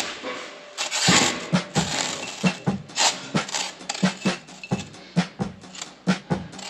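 Background music with a steady percussive beat, about three strokes a second.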